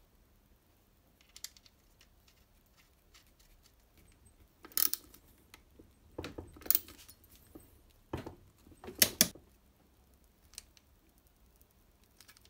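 Sharp metallic clicks and clinks of hand tools on an engine crankcase as a torque wrench tightens a nut to 35 Nm, coming in a few clusters through the middle, with the loudest clicks near the end of them.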